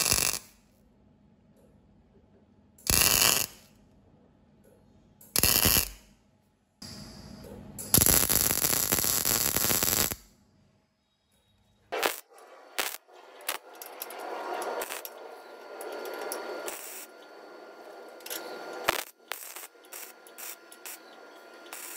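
Arc welding on steel tubing: four loud bursts of arc crackle and hiss with short silences between them over the first ten seconds. After that comes a quieter, steady crackle with scattered sharp pops.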